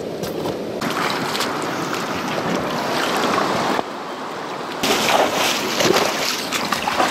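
Rushing river water with wind on the microphone, a steady noisy wash that changes character abruptly about a second in, again near four seconds and near five seconds.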